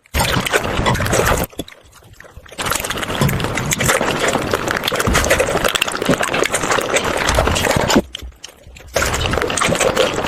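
Close-miked eating: chewing and crunching of food. It comes in three stretches separated by two short pauses.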